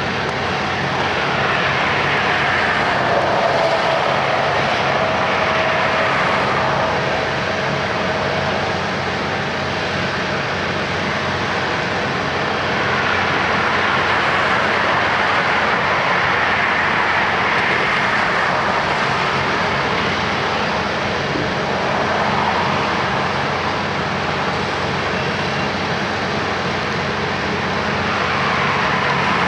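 Diesel engines of asphalt paving machinery running steadily. There are several slow swells that rise and fall, each lasting a few seconds.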